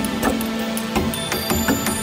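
Background music: sustained tones with a light ticking, clock-like percussion.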